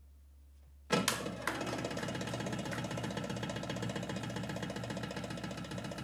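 Darbuka (goblet drum) breaking a short pause about a second in with a few sharp strokes, then a fast, dense roll of rapid strokes.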